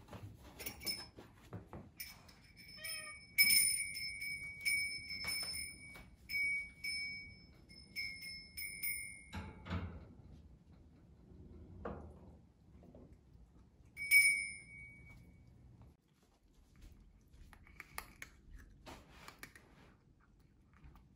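A British shorthair cat meowing for its food, mixed with a run of short, clear ringing clinks that come about every half second for several seconds, then once more near the middle.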